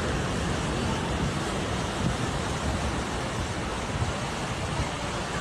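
Steady rushing noise of wind and surf, with no distinct events.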